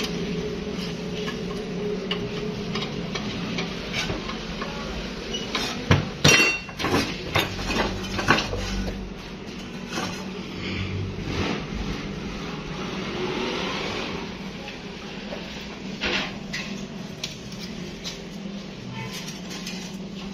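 Metal-on-metal clanks and clicks as the parts of a water pump are handled and bolted together with a hand tool, over a steady low hum. A cluster of loud knocks comes about six to eight seconds in.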